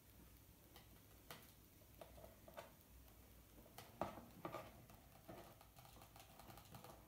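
Faint handling noises: small clicks and rustles as a Tetra Pak carton is handled and nylon thread is pulled through its cap, with a sharper knock about four seconds in.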